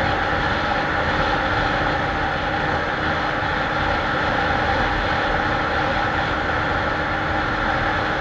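A small single-cylinder commuter motorcycle engine holding a steady high speed under full throttle, with wind rushing past. The drone stays level throughout, with no rise or fall in pitch.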